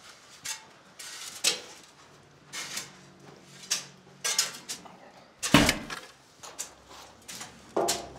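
Shovels digging and scraping into packed silt and dirt: about a dozen irregular strokes, the loudest about five and a half seconds in.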